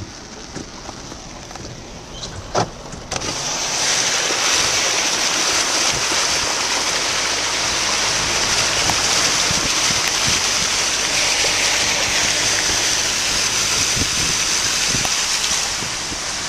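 Raindrops ticking on a car's windshield, with one sharp knock. About three seconds in, this gives way abruptly to a loud, steady hiss of heavy rain and wind blowing on the microphone.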